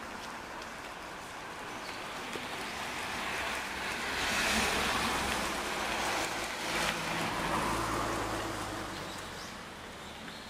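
Road traffic passing close: a van's tyres and engine swell to a peak about halfway through and fade, followed by the low engine hum of a tour bus.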